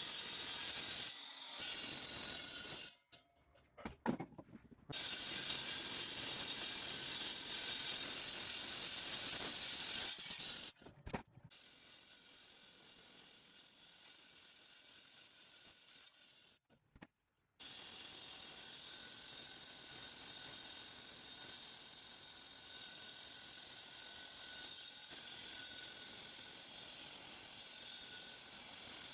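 Concrete-cutting saw grinding through concrete: a steady hissing grind with a faint whine. It is louder for the first dozen seconds, then softer and even, and cuts off abruptly a few times.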